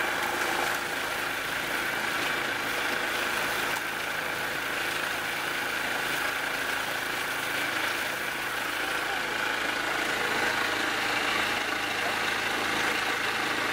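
Motorboat engine running steadily as the boat cruises across open water, with a constant drone and hiss.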